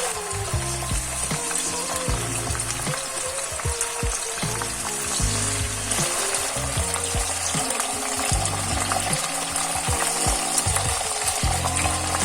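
Chicken wings frying in a pan: a steady sizzling hiss of hot oil.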